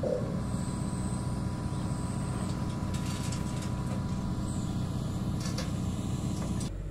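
Excavator's diesel engine running steadily, with short metallic rattles about three seconds in and again about five and a half seconds in.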